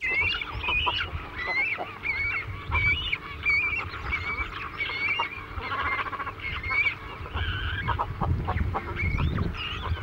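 A flock of birds calling, many short wavering calls overlapping and repeating without pause, over a low rumble.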